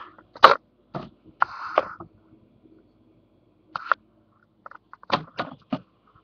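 Irregular sharp clicks and knocks with a short rustle, the loudest about half a second in and a quick cluster near the end, over a faint steady hum: handling noise from the webcam being moved about.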